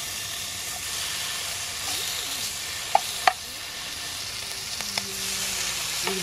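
Bacon strips sizzling and spitting in a hot nonstick frying pan as raw strips are laid in. Metal tongs clack sharply against the pan twice about three seconds in, and once more, softer, near five seconds.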